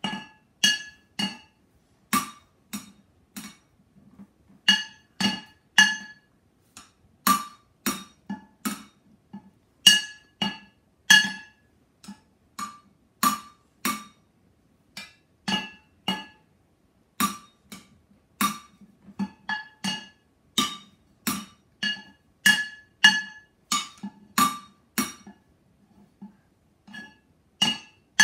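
Wooden drumsticks beating a rhythm on upturned metal cooking pots used as drums. Each hit is a sharp metallic clang with a short ring, about two to three hits a second, with softer taps between louder accents and a brief lull near the end.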